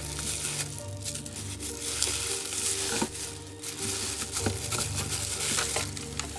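Crackling and rustling of packaging being handled and unwrapped, with a few sharp clicks, over quiet background music.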